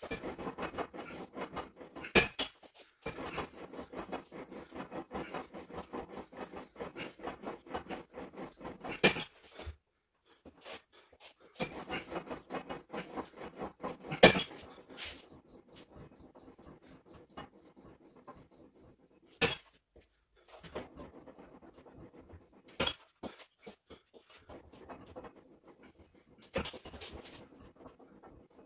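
Cable-stack weight machine worked in sets of rapid pulls: the weight plates and cable rattle and clink in a quick, even rhythm, broken by short pauses, with several sharp louder clanks.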